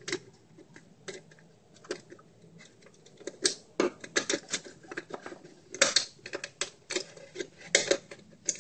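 Irregular clicks and taps of a screwdriver tip on a disposable camera's flash circuit board and plastic body, some coming in quick little clusters.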